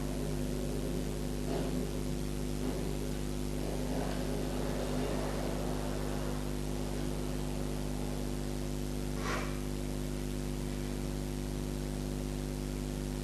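Steady electrical hum with a hiss of background noise, with a few faint light knocks and one sharper clink about nine seconds in.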